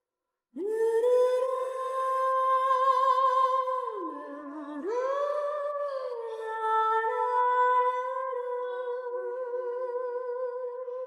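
Solo female voice singing a cappella, entering about half a second in. It holds long high notes with vibrato, dips to a lower note around four seconds in, then climbs back and sustains.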